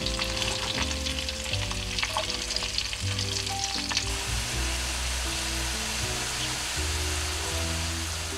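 New York strip steak frying in a cast iron skillet: a steady sizzle with frequent sharp crackles and pops. Low held notes of background music, changing about every second, run underneath.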